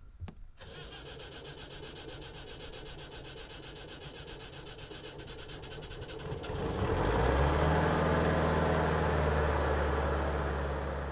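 An engine running steadily, then rising in pitch and growing much louder with a deep hum about six and a half seconds in, and holding at that level.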